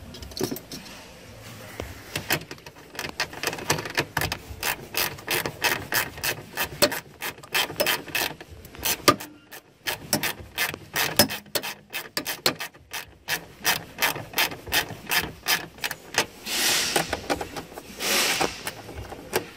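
Socket ratchet clicking in quick runs, about four clicks a second, with a short pause about halfway through, as the tail light assembly's mounting nuts are run on. Near the end come two short scraping rustles.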